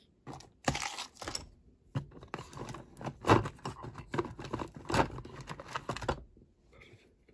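Irregular clicks, taps and rustling of small objects being handled on a hobby workbench, stopping about six seconds in.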